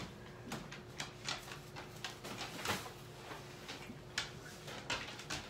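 Light footsteps, scattered clicks and knocks on a wooden floor, and heavy fabric rustling as brown work overalls are taken down from a coat hook.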